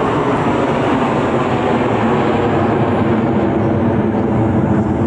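Loud, steady jet roar from a six-ship formation of USAF Thunderbirds F-16 Fighting Falcons, deepening in pitch as it goes on.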